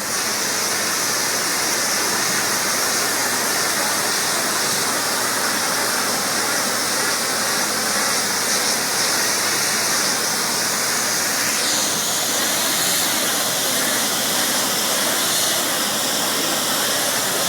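High-pressure water jet spraying with a steady loud hiss, its tone shifting slightly lower about twelve seconds in.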